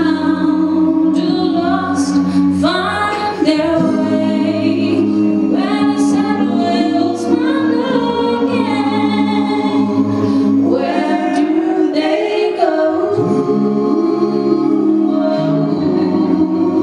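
Mixed male and female vocal group singing gospel a cappella into handheld microphones, with low harmony notes held steady under a moving lead line.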